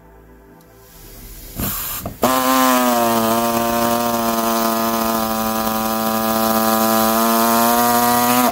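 Handheld electric saw cutting through the sheet steel of a car's rear wheel arch. It starts with a brief burst, then from about two seconds in runs steadily, its pitch dipping a little as the blade bites, and stops suddenly at the end.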